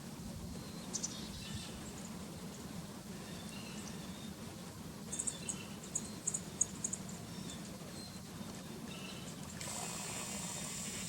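Quiet outdoor ambience with a steady low hum, a few faint short bird chirps, a quick run of sharp high ticks about halfway through, and a rise of hiss near the end.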